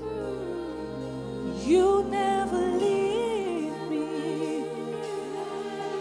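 Slow gospel worship music: a woman sings long, wavering held notes over sustained instrumental chords, her voice coming in about a second and a half in.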